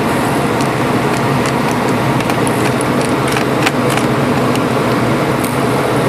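A steady, loud machine-like drone with a low hum, and over it scattered small clicks and taps of a laptop's bottom cover and screws being handled.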